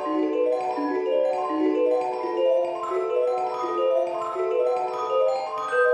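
Background music: a quick melody of short notes on a mallet instrument, stepping up and down without a break.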